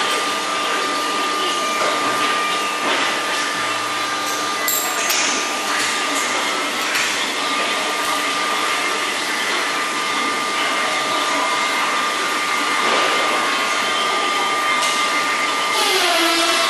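Steady blower-like machine whir with a thin, steady high tone running through it.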